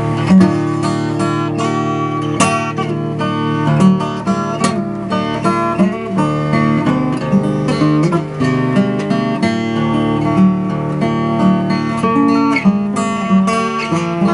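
Acoustic guitar playing an instrumental break on its own: many quickly picked notes over steady low bass notes.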